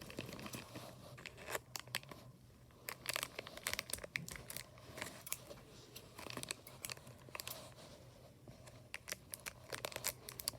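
Plastic blind-bag toy packaging being torn open and crinkled by hand: faint, irregular crackles and rustles.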